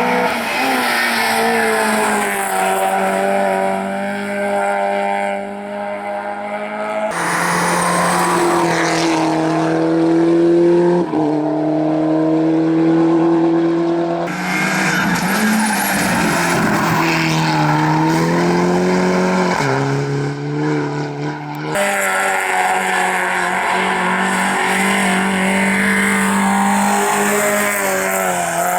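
Rally cars driven hard on a special stage: engines revving high, with pitch rising and falling through gear changes and corners. Four separate passes are cut together, each ending abruptly.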